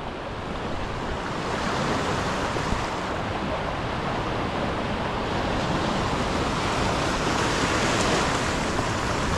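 Ocean surf washing, with wind buffeting the microphone; the rush swells over the first couple of seconds, then holds steady.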